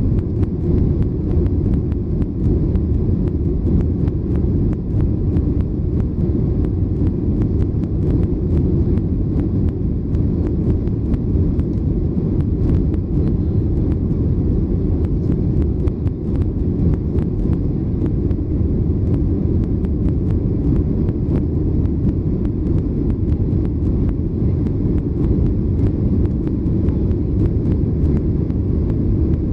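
Steady low rumble of a Boeing 737-800's CFM56-7B engines and the airflow over the fuselage, heard inside the cabin during the climb-out.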